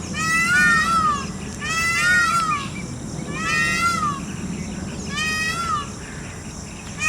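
Peacock calling: four loud, nasal, rising-then-falling cries, each about a second long, repeated roughly every one and a half seconds.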